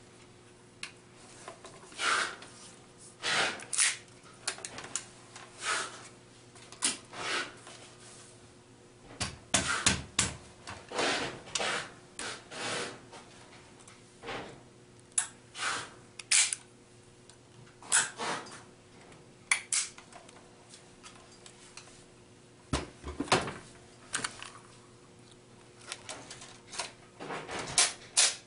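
Scattered clicks and clacks of a KJW M1911 gas blowback airsoft pistol being handled, its slide and parts worked by hand, with a busier run of clacks about a third of the way in.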